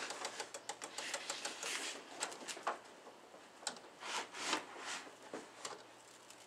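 Hi-Tec HS-7955TG digital servo on the elevator linkage chattering: rapid, irregular clicking, dense for the first couple of seconds and then thinning out. The owner is unsure whether this is the servo hunting for its center point or a sign of binding.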